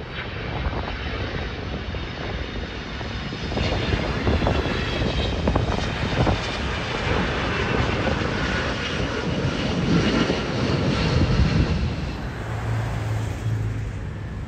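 Jet engine noise of a Boeing 777-200 on final approach, passing low and landing, with a whine that falls in pitch as it goes by. The noise is loudest about ten seconds in. Near the end a steadier low hum comes from a Boeing 787-8 on approach.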